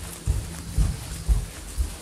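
Footsteps on a wooden plank floor, dull low thuds about two a second from someone walking at a steady pace.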